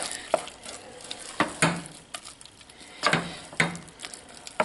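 Wooden spoon stirring thick creamed spinach in a stainless steel saucepan, knocking and scraping against the pan at irregular moments, about half a dozen times.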